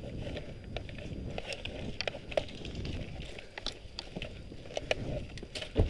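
Footsteps through dry grass and brush, with irregular small cracks and crackles of twigs and the rustle of the player's gear, and a single loud thump near the end.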